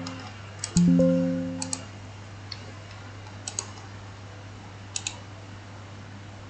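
A computer's low alert ding about three quarters of a second in, fading over about a second: the Windows chime for a dialog box that needs attention. Computer mouse clicks, mostly in pairs, follow every second or two, over a low steady hum.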